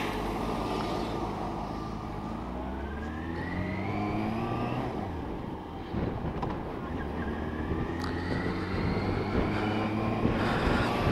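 Motorcycle engine pulling away from a stop and accelerating, its pitch rising steadily. There is one upshift about halfway through, after which it climbs again.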